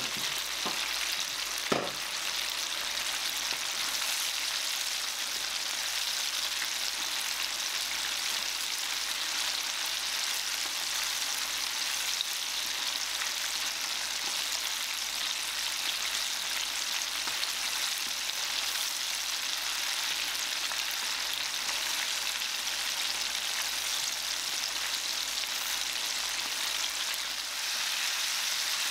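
Starch-coated chicken pieces (karaage) deep-frying in hot oil, a steady sizzle throughout. A single sharp click about two seconds in.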